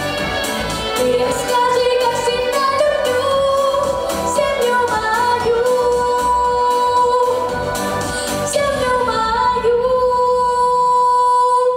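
Female voice singing a melody over an instrumental backing track with a beat. Near the end the backing's beat stops and the voice holds one long final note.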